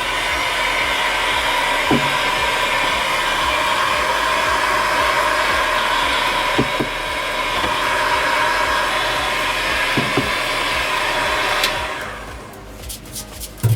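An electric motor, such as a power tool, running steadily with a whir, with a few light knocks, then winding down after a click near the end.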